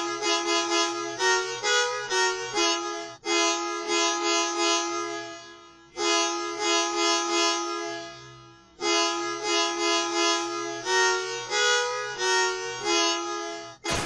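Musical bus horn tune, slowed down: a reedy multi-tone horn holds a chord, plays a run of short notes, then holds another chord. The tune starts again a little before halfway through, in an even slower version.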